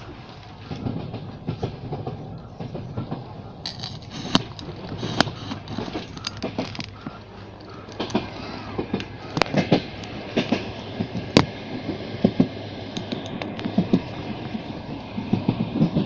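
Moving passenger train heard from inside the carriage: a steady rumble with many sharp, irregular clicks and knocks from about four seconds in.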